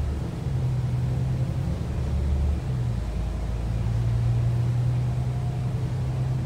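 Volvo B9TL double-decker bus under way, heard from the upper deck: a steady low drone of its diesel engine and drivetrain with road noise, the drone's pitch changing about two and a half seconds in.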